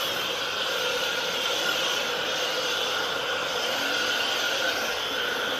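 Self-service car wash foam lance spraying foam onto a car under pressure: a steady hiss of the spray over the hum of the wash's pump.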